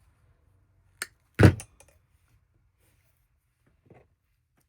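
Small handling knocks on a work surface: a sharp click about a second in, then a louder, duller thump half a second later, and a faint tap near the end.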